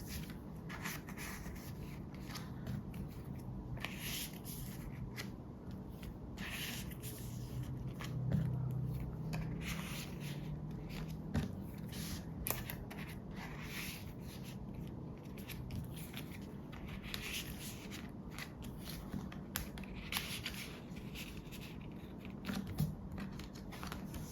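Plastic photocard sleeves and binder pages being handled: repeated soft rustling, scraping and small clicks as photocards are slid into the pockets, with a dull thud about eight seconds in.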